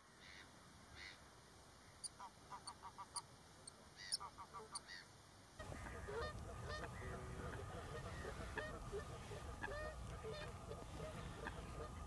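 Meadow and water birds calling, with goose-like honking calls. First comes a quiet run of short, quickly repeated calls. About five and a half seconds in, the sound cuts to a louder, busier chorus of many calls over a low background rumble.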